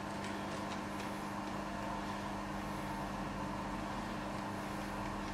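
Steady low hum with no distinct knocks or clicks: workshop room tone.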